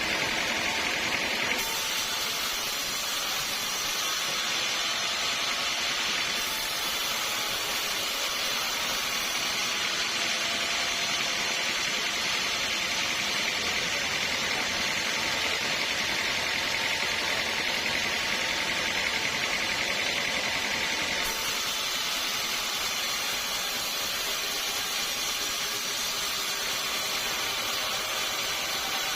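Sawmill saw running steadily as it cuts through a large teak log, a continuous loud hiss of machine and blade. The noise shifts abruptly a few times.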